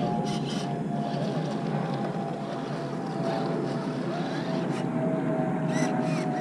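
Traxxas TRX-4 RC crawler's electric motor and geartrain whining steadily, the pitch drifting slowly as the truck crawls over rocks, with the creek's running water hissing behind it.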